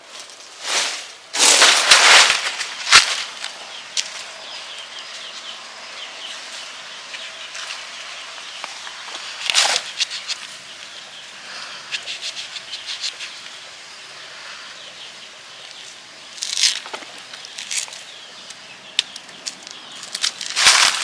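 Irregular short bursts of rustling, flapping noise, the biggest cluster about one to three seconds in and single ones near ten, seventeen and twenty-one seconds, with light clicks and scratches between them.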